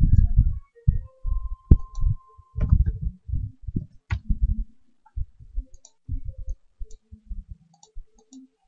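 Irregular dull taps and clicks of a computer keyboard and mouse in use, picked up through the desk.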